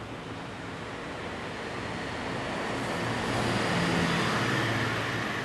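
A motor vehicle driving past on the street: the sound of its engine and tyres swells to a peak about four seconds in, then begins to fade.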